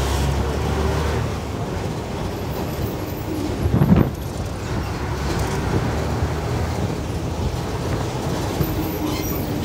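A KSRTC bus in motion, with steady engine and road rumble. About four seconds in there is one brief, louder thump or jolt.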